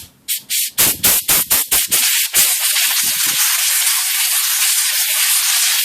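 Compressed-air blow gun blasting lacquer thinner through an IBM Selectric motor's bearings to flush out the old oil: about ten short hissing bursts in the first two and a half seconds, then one steady blast of about three and a half seconds that turns the thinner into a mist.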